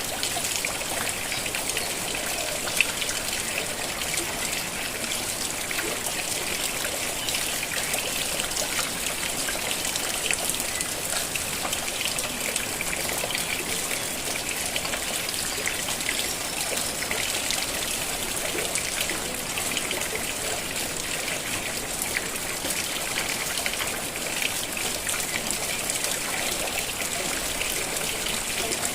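Steady rain falling in a dense patter of drops, with water trickling and running off. One sharp tap stands out about three seconds in.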